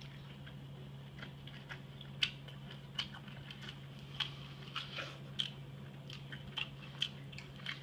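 A person chewing a bite of sushi roll with a crunchy topping close to the microphone: irregular small crunches and mouth clicks, about one or two a second.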